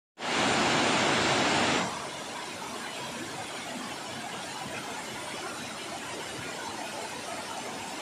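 Steady rushing of a wide waterfall cascading over rock into a pool. It opens with a much louder, even hiss for about the first second and a half, which cuts off suddenly.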